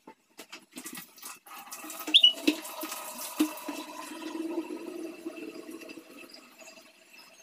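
Water running steadily, starting about two seconds in after a few light clicks and a short squeak, and easing off near the end.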